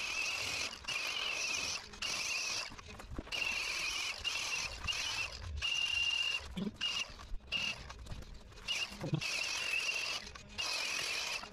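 Cordless angle grinder with a wire wheel stripping peeling ablative bottom paint from a fiberglass sailboat hull: a high motor whine with a scratchy hiss, cutting in and out in bursts of about a second.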